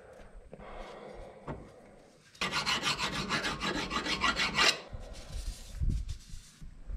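Quick back-and-forth rasping strokes by hand against rusted metal inside a car's rear wheel hub mounting hole, grinding down a rust ridge so the new hub bearing will fit. The rasping lasts about two seconds in the middle and is followed by a softer wiping rub.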